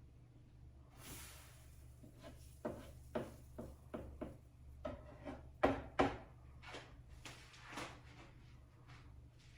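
Kitchen clatter: a run of irregular knocks and clicks, like dishes, utensils and cupboard doors being handled, the loudest pair about six seconds in, over a low steady hum.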